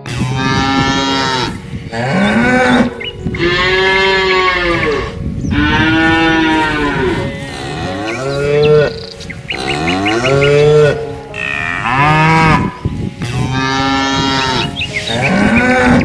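Cattle mooing: about nine long, loud lowing calls one after another, each a second or two long, several rising and then falling in pitch.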